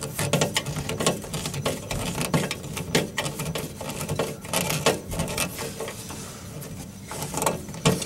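A socket tool working a screw on a rusty gas-furnace mounting bracket: irregular small metallic clicks and taps, with a sharper knock near the end.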